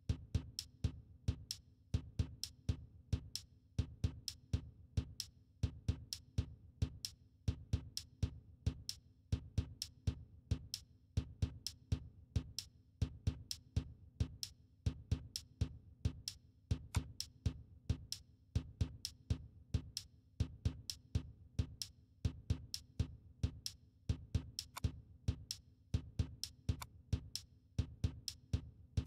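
Electronic background music with a steady drum-machine beat over a low bass.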